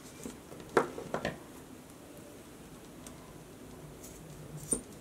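Light handling of paracord and metal scissors: a few small clicks and taps about a second in, and another small click near the end as the scissors are set around the white 275 paracord to cut it.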